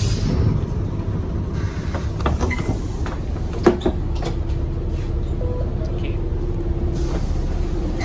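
Single-decker bus's diesel engine idling with a steady deep rumble, heard from inside the bus, with a few clicks and knocks between about two and four seconds in, the sharpest one near four seconds.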